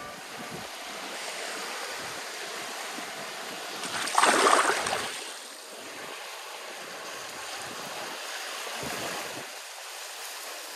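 Gentle waves washing onto a sand bank in a steady hiss, with one wave swelling and breaking about four seconds in, then receding.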